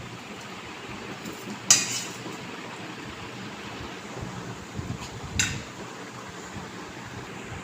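Eating at a table: two sharp clinks of tableware, the first under two seconds in and louder, the second about five and a half seconds in, over a steady low hiss.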